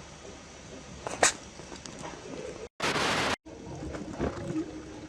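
Hedgehog sneezing: one sharp, loud sneeze about a second in, then a half-second burst of noise framed by two brief dropouts just before the middle, and weaker short bursts about four seconds in.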